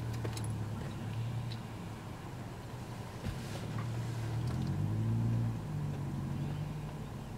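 A vehicle engine idling: a steady low hum that shifts slightly higher in pitch about five seconds in, with a few faint clicks.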